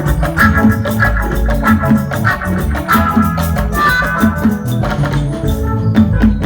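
Music with keyboard and drums playing a steady beat, loud and continuous.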